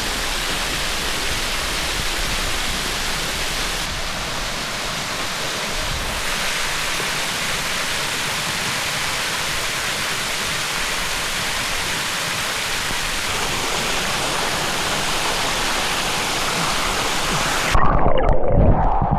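Steady rushing of a waterfall. About a second and a half before the end the sound turns abruptly muffled and louder, with a low rumble.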